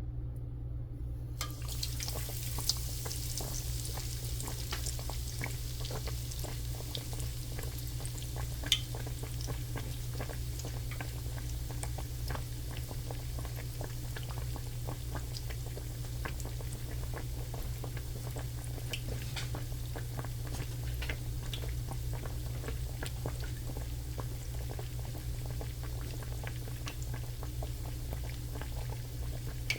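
Shrimp frying in hot oil, a dense, continuous sizzling and crackling that starts about a second and a half in, over a steady low hum.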